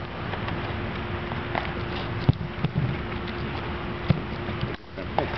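A small dog licking and smacking at ice cream in a plastic dish, with a few short clicks and knocks over a steady background hiss and faint hum.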